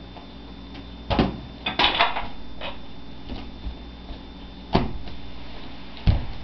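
A handful of scattered knocks and scrapes from a broom being pushed around the floor by a toddler, the busiest cluster about two seconds in.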